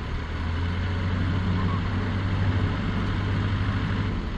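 An engine running with a steady low drone that swells about half a second in and eases off near the end.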